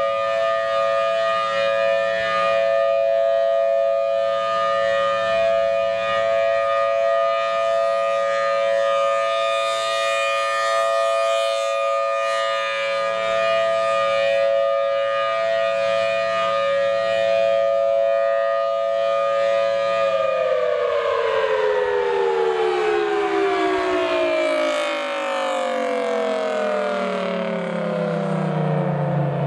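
Federal Signal Thunderbolt 1000T tornado siren with a 5/6-port chopper, sounding its steady two-tone chord at full speed. About twenty seconds in it shuts off and winds down, the pitch falling steadily.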